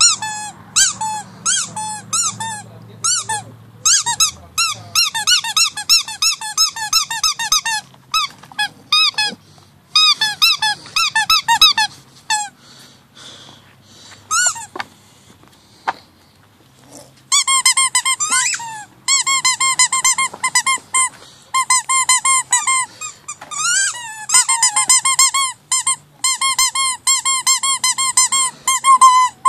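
Rubber squeaky dog toy squeaked over and over in quick runs of short, high squeaks, with a pause of a few seconds about halfway through.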